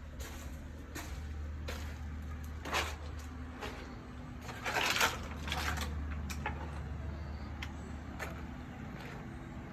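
Footsteps and knocks from handling a hand-held camera while walking, over a steady low rumble, with two louder scuffing bursts about three and five seconds in.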